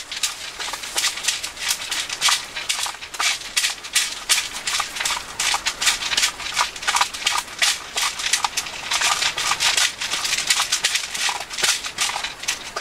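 Dogs eating from food bowls: a fast, irregular run of chewing and licking clicks.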